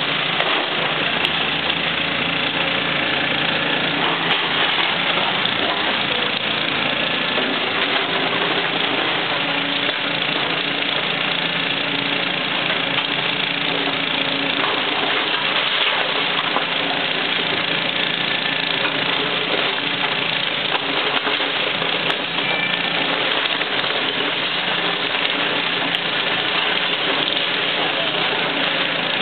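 Caterpillar hydraulic excavator's diesel engine running steadily under load as the machine works.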